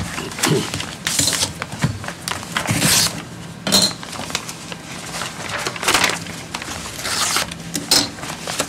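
Paper rustling and crinkling in several short bouts as bid documents are opened and leafed through.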